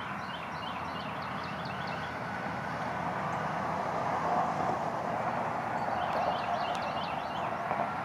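A steady rushing background noise that swells through the middle, with a small songbird singing a quick run of high chirps at the start and again near the end.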